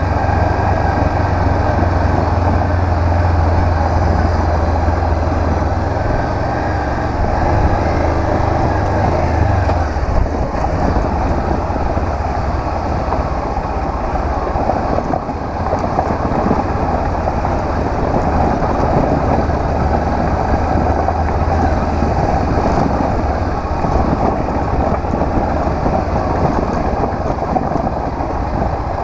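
Honda CB500X motorcycle's parallel-twin engine running under way, with steady low engine hum for the first ten seconds or so, then rougher, noisier sound.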